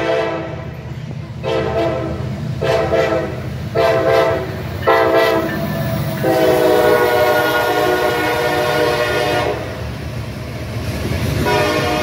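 Freight locomotive horn sounding four blasts of about a second each, then one long blast of about three seconds, over the rumble and clatter of the passing train. The horn starts again near the end.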